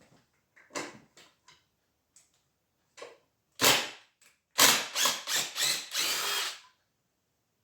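Cordless drill-driver backing screws out of a wooden chair frame. It runs in one short burst, then in several quick bursts, then in a longer run that stops suddenly near the end.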